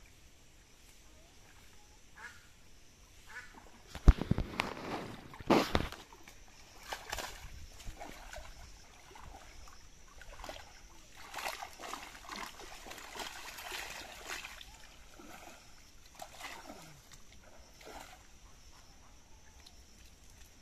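Pond water splashing as a cast net is hauled up out of the water, with the loudest splashes about four to six seconds in, then lighter splashing and dripping as the wet net is carried out through the shallows.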